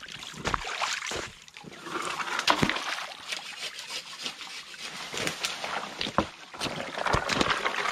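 Shallow creek water trickling close by, with repeated splashes, sloshes and knocks as a person wades through the stream in rubber boots and sets a log and branches into the water.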